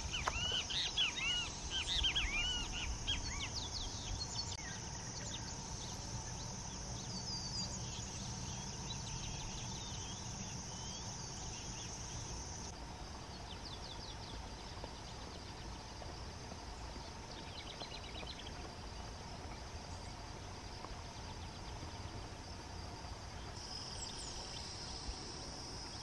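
Outdoor ambience of insects trilling in a steady high drone, with scattered short bird chirps, most of them in the first few seconds.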